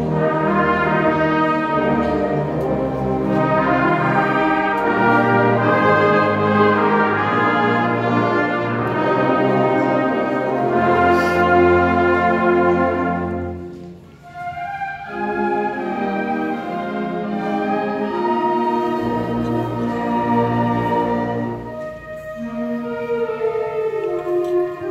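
Student concert band playing, with the brass section prominent. The music breaks off briefly about halfway through, then resumes.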